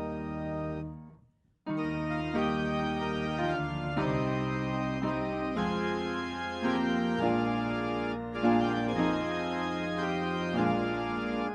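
Organ playing sustained chords that change every second or so; the music cuts out about a second in and comes back half a second later.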